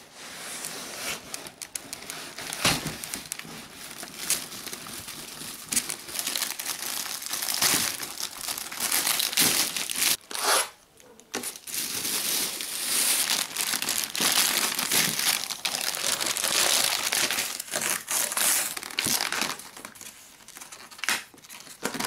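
Clear plastic packaging bag crinkling and rustling as it is handled and pulled off a boxed dehumidifier, with a short break about halfway through.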